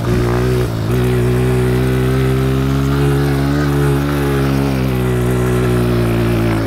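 Dirt bike engine running steadily under throttle on a hill climb, its pitch wavering slightly up and down.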